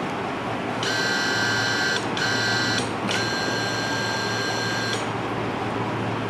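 Operating-room equipment sounds a steady high electronic tone three times, a long one, a short one and a longer one, over a constant low hum of the theatre.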